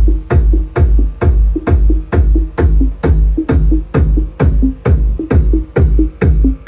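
Sony SS-MF650H floor-standing speakers playing loud electronic techno, a drum-machine kick hitting about twice a second over heavy bass.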